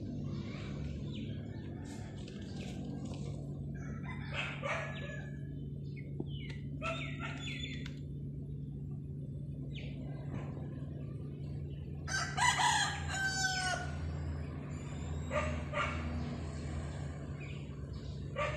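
A few separate animal calls over a steady low hum. The loudest and longest comes a little past the middle.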